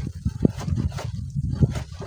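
Strong wind buffeting the microphone in uneven gusts, with a few short crackles.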